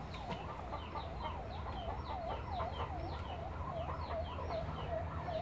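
Faint police siren wailing in a fast yelp, its pitch sweeping down and up about two to three times a second.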